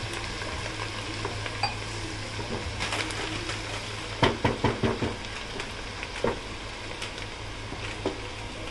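Chopped onions sizzling in hot mustard oil in a pot while being stirred, the spoon scraping and knocking against the pot. A quick run of about five knocks comes a little over four seconds in.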